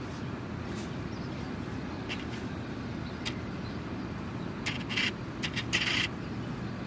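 Steady low rumble of distant traffic, with short scratchy rustles that bunch together about five to six seconds in as a hand rubs the cat's fur.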